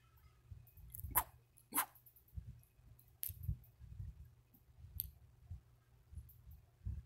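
Two kittens play-fighting on a carpeted cat tree: faint soft thumps throughout, with a few sharp clicks, the loudest two about a second in and just under two seconds in.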